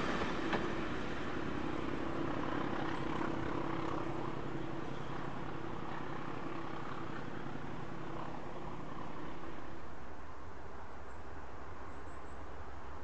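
Diesel-hauled train moving away, its engine note and rail noise fading over the first several seconds to a low, steady distant rumble.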